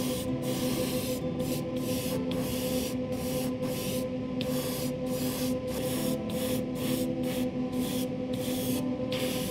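Airbrush spraying paint in short bursts of hiss, the air cut on and off two or three times a second, over a steady hum.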